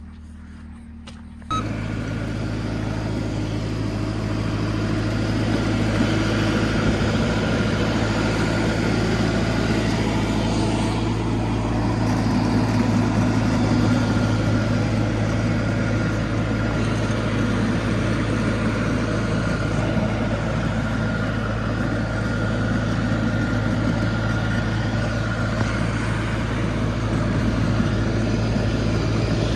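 A vehicle engine running steadily, cutting in abruptly about a second and a half in.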